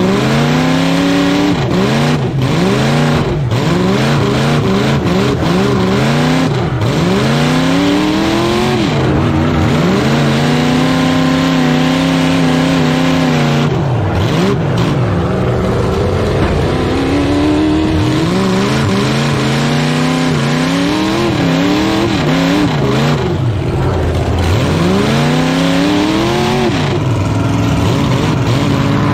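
Demolition derby truck's engine, heard from inside the cab, revving up and dropping back over and over as the driver drives the truck back and forth. A few sharp metal knocks come through along the way.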